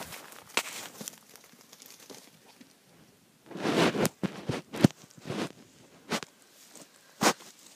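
Dry fallen leaves rustling and crunching underfoot: a short burst of rustling about halfway through, then a handful of sharp single crunches.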